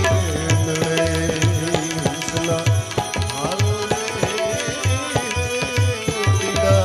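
Instrumental break in a Gujarati devotional bhajan: tabla playing a steady rhythm, with deep, regularly repeated bass-drum strokes under a melody instrument with sustained and gliding notes.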